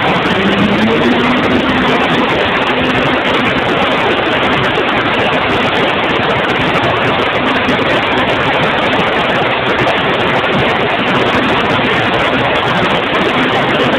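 Steady, loud rush of airflow over a phone microphone strapped under a flying Extra 330, with a faint engine-and-propeller drone that rises in pitch about a second in.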